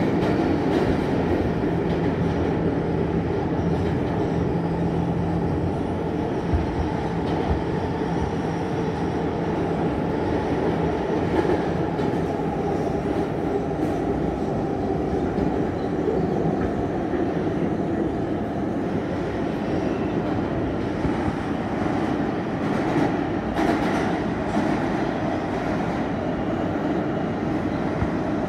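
R160 New York City subway car running through a tunnel, heard from inside the car: a steady loud rumble of steel wheels on the rails and the car body rattling. A low steady hum underneath stops about eleven seconds in.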